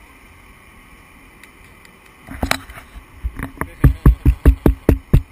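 A steady low hiss, then from about two seconds in a quick, even run of heavy thumps, about five a second, growing louder toward the end.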